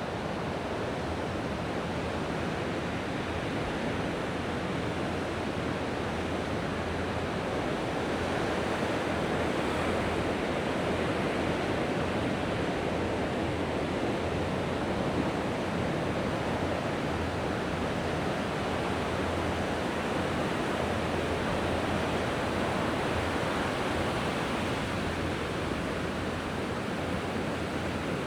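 Mediterranean sea waves washing onto the shore: a continuous wash of surf that grows a little louder over the first several seconds and then holds steady.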